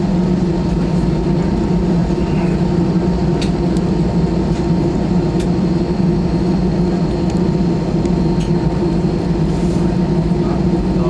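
Steady cabin hum of an Airbus A320-216's CFM56 turbofan engines at low taxi power, heard inside the cabin over the wing: an even low drone with no spool-up, with a few faint clicks.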